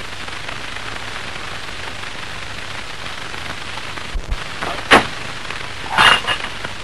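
Steady hiss and crackle of an old optical film soundtrack, broken by one sharp crack about five seconds in and a brief louder burst about a second later.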